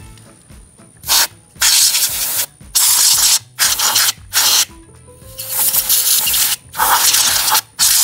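Aerosol spray can with a straw nozzle hissing in about eight short bursts of varying length, the first about a second in, as it is sprayed onto a gas water heater's pilot burner assembly.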